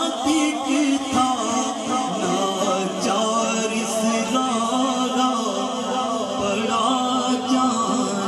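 A man singing a naat, Islamic devotional poetry, into a microphone, drawing out long notes that bend and waver in pitch.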